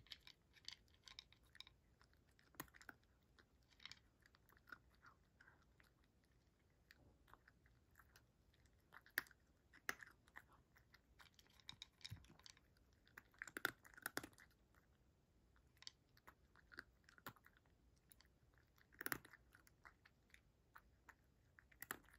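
A cat crunching dry kibble from a bowl: faint, irregular crunches and clicks of chewing, with a few louder crunches around the middle and near the end.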